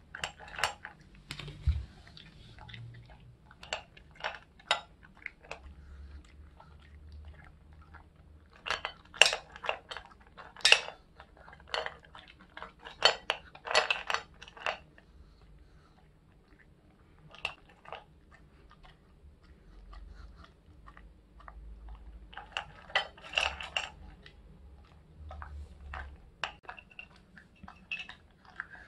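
Shih Tzu eating dry kibble from a stainless steel bowl: irregular crunching and chewing, with sharp clinks against the metal bowl that come in busy spells.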